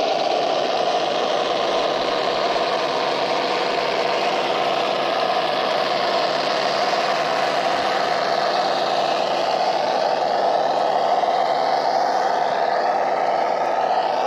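Simulated truck engine sound from an RC scale truck's Das Mikro TBS Mini sound module, played through its small onboard 8-ohm speaker: a steady, thin engine tone with no deep bass. In the second half a faint higher whine rises and falls in pitch under it.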